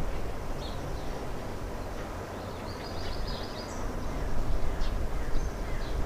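Outdoor ambience: a steady low rumble of wind on the microphone, with birds chirping now and then and one longer bird call about three seconds in.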